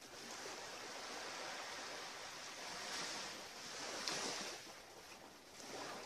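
Sea waves washing onto a beach: a steady hiss of surf that swells a couple of times as waves come in.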